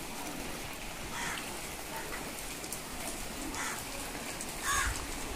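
Steady rain falling, with a few short calls over it, the loudest near the end.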